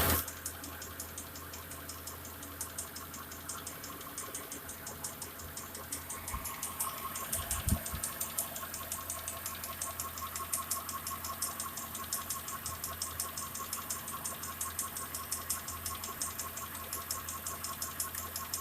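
Mitsubishi Pajero 4 engine running warm, with a rapid, regular ticking, about four ticks a second, from the lower front of the engine around the timing-belt cover and crankshaft pulley. The tick comes only once the engine is hot and began after the head gaskets were replaced. A new timing-belt tensioner and idler pulley have not cured it, and its cause is unknown. A single dull thump about eight seconds in.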